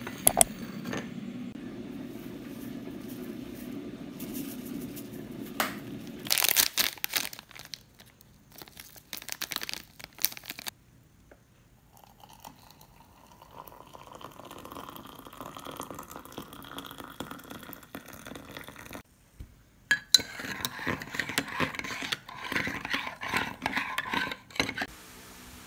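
A low hum, then a short rustling burst about six seconds in. Water is poured into a ceramic mug, its pitch rising steadily as the mug fills. Near the end a metal spoon stirs and clinks against the mug.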